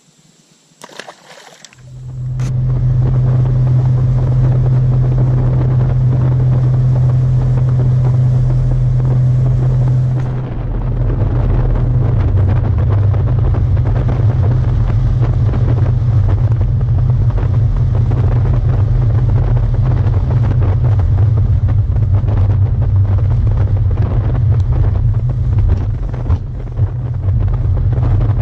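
Bass boat running at speed: a steady low outboard motor drone mixed with heavy wind buffeting on the microphone. It comes in loud about two seconds in, after a few quiet moments.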